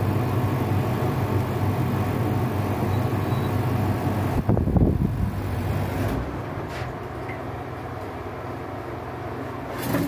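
Zanussi ZPAC9002 portable heat pump air conditioner running with a steady low hum and fan hiss, then being switched off. The sound drops away in two steps, about four and six seconds in, leaving a quieter hum, with a short knock near the end.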